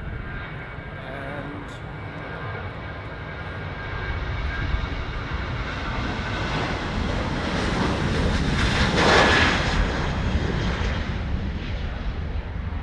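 Boeing 737 jet engines at take-off power as the airliner departs, a steady roar with a whine that builds to its loudest about nine seconds in and then eases slightly.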